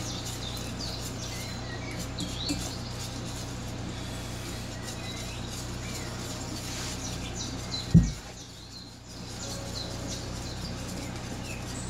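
Milk pouring from a glass measuring cup into a stainless saucepan of flour and sugar while a wire whisk stirs, with one sharp knock about eight seconds in. Small bird-like chirps and a steady low hum run underneath.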